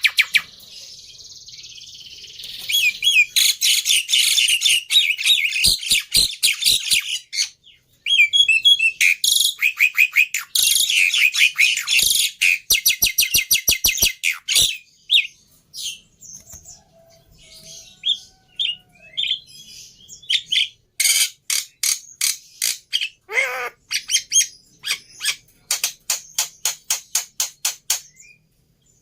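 Jalak starling singing a long, varied song of harsh chattering, rapid runs of sharp repeated notes and short whistles, with a brief pause about eight seconds in. It is a lure-song recording used to prompt caged starlings to sing.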